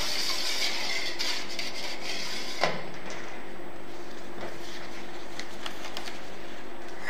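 Light kitchen handling sounds over a steady low hum: a scraping hiss for the first few seconds that ends in a sharp click, then a few faint clicks.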